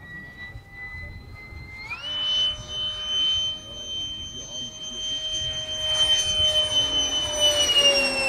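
Electric ducted fan of a model Eurofighter jet (Turbofan 4090 fan on a Neu 1527 motor) whining in flight. Its pitch jumps up sharply about two seconds in as the throttle is opened, then holds steady. Near the end it grows louder and the pitch falls slightly as the jet passes close.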